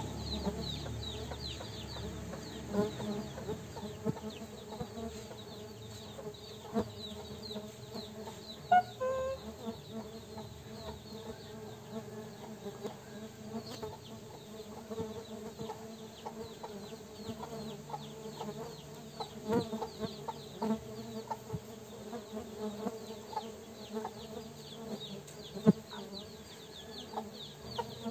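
Tetragonula biroi stingless bees buzzing steadily around their wooden hive box.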